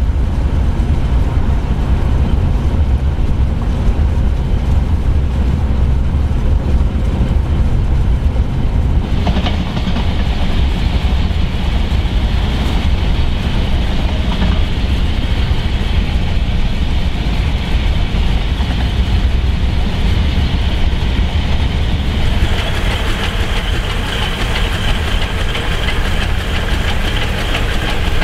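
South African Class 26 'Red Devil' steam locomotive running along the line, heard from a car pacing alongside: a steady rumble with the clack of wheels over the rails. The sound grows brighter about nine seconds in and again about twenty-two seconds in.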